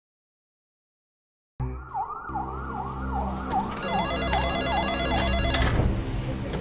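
After about a second and a half of silence, a siren-like wail starts abruptly, swooping up and down about two and a half times a second over a steady low drone.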